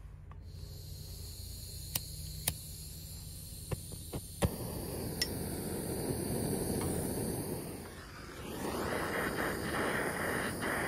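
Handheld propane torch: a few sharp clicks, then the flame lights about four and a half seconds in and burns with a steady hiss, dipping briefly near eight seconds before coming back. It is heating rusted hydraulic fittings soaked in penetrating oil to break them free.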